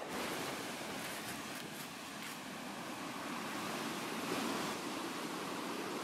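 Sea surf breaking and washing up the beach, a steady rushing hiss that swells a little about four seconds in.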